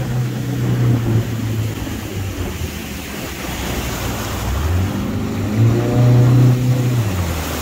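Outboard motor at low speed, with wind and water noise on the microphone. About halfway through the motor revs up briefly, holds, then drops back near the end.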